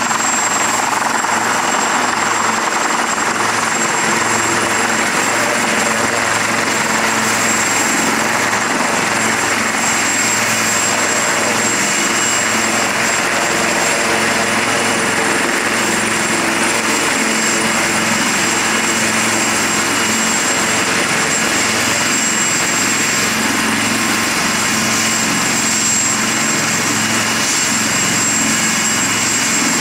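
Two British Army AW159 Wildcat helicopters running close by, one landing beside the other. Their twin turboshaft engines give a steady high turbine whine over the continuous rotor noise.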